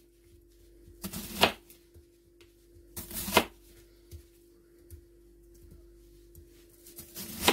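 Kitchen knife slicing an onion into rings on a cutting board: three separate cuts, each a short crisp crunch through the onion. A faint steady hum runs underneath.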